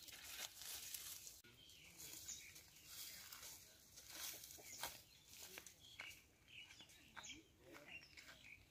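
Faint crackling and rustling of dry branches and straw as they are pulled up and gathered by hand, a scatter of irregular small snaps and ticks.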